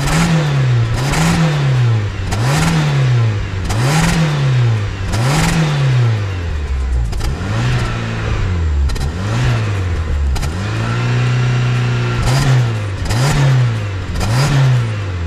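Fiat 500's swapped-in 1.4 T-Jet turbocharged four-cylinder is revved in quick repeated blips, about one a second, with one rev held steady for a second or so about two-thirds of the way in. It is running very rich on a base map, freshly fitted with a Ram Air intake filter.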